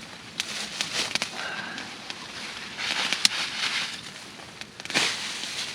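Pine boughs rustling and crackling as they are handled and pressed down into a bough bed, with irregular sharp snaps of twigs and needles and two brief bursts of louder rustling.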